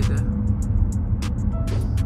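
Background music with a steady beat, over the low rumble of a car on the road.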